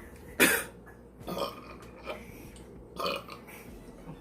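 A woman burps once, short and loud, about half a second in, from the gas of gulped carbonated soda. A few shorter, fainter sounds follow.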